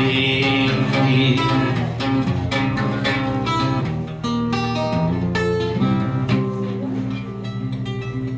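Solo archtop guitar playing an instrumental passage of picked notes, with a low note repeating at an even pace in the second half.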